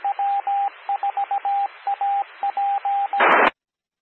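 Amateur radio repeater's Morse code identifier: a single mid-pitched beep keyed in dots and dashes, sending the W4AP callsign over a hiss. A little after three seconds it ends in a short burst of squelch noise as the repeater's carrier drops.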